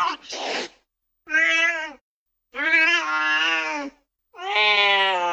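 Domestic cat meowing repeatedly: three or four separate drawn-out meows with short gaps between them, the last a long call still going at the end.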